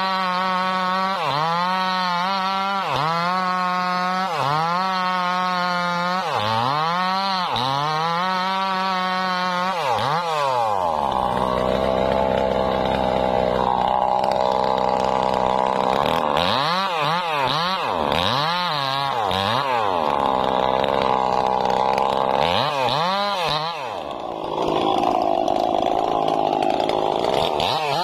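Maestro two-stroke chainsaw cutting into a sengon tree trunk. The engine's pitch dips and recovers about once a second as the chain bites into the wood and is eased back, with stretches of steadier running in between.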